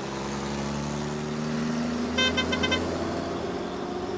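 Vehicle engine running, its pitch rising slowly, and about two seconds in a horn gives about four quick toots.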